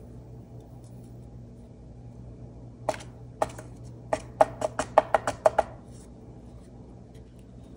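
A series of about ten sharp taps of a hand-held card edge on a paper-covered craft table, quickening as they go, knocking loose glitter off the glued surface.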